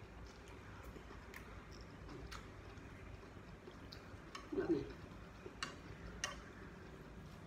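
Quiet eating sounds: scattered light clicks of chopsticks and a metal spoon against a ceramic noodle bowl, with chewing. A little past halfway comes one brief louder mouth sound that falls in pitch.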